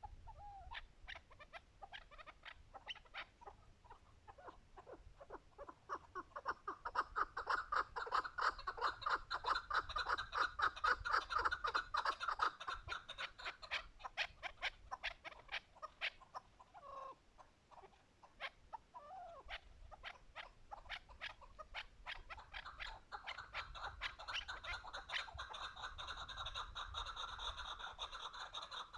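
Chukar partridge calling, a long run of rapid clucking notes that grows louder, thins out around the middle and picks up again near the end.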